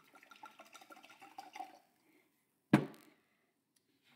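Red wine poured from a bottle into a stemmed wine glass, gurgling and splashing, stopping about two seconds in. A little later comes a single sharp knock, the loudest sound.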